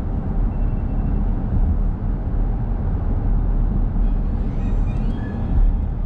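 Steady low rumble of a car driving on a paved road, with tyre and engine noise heard from inside the cabin.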